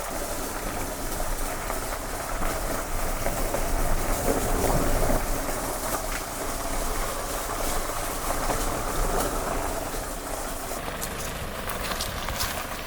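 Car driving slowly, a steady run of road and tyre noise with a few small ticks near the end.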